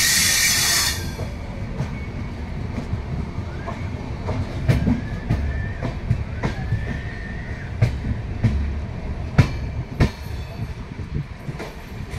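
Indian Railways passenger coach rolling slowly into a station, heard from its open doorway: a steady low rumble with a few sharp wheel clacks over rail joints and a faint, drawn-out squeal in the middle. A loud hiss dies away about a second in.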